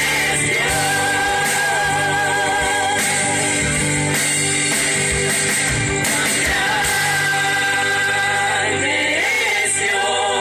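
Gospel vocal group singing a worship song together into microphones, with live band accompaniment and percussion; the voices hold long, wavering notes.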